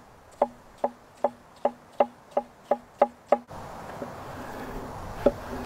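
Cleaver-style knife chopping cucumber on a wooden cutting board: nine quick, even knocks, about two or three a second, as the blade strikes the board. After a short pause comes a single knock a little over five seconds in as the knife cuts through a cherry tomato.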